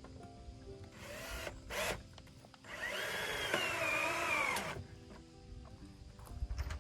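Power drill run in short bursts: a brief spin about a second in, then a longer run of about two seconds whose pitch sags as it bogs down under load, typical of driving a fastener into oak siding. Background music plays underneath.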